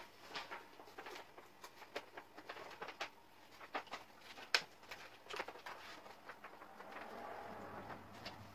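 Paper backing being peeled off a sheet of self-adhesive black vinyl and the sheet handled: faint scattered crackles and crinkles, with a longer, steadier peeling rustle near the end.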